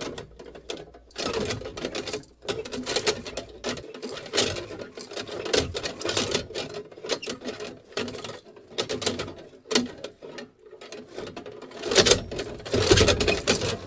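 Metal lantern being shaken and moved, its metal parts squeaking and rattling in irregular clattering bursts, loudest near the end.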